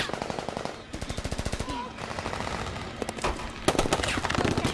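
Rapid automatic gunfire in long bursts, machine-gun fire from a film battle soundtrack. Louder, sharper shots come in near the end.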